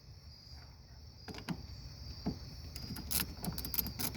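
Scattered metallic clicks as a battery clamp and wrench are fitted to the negative terminal, turning into quick ratchet-wrench clicking about three seconds in as the clamp bolt is tightened. Crickets chirp steadily underneath.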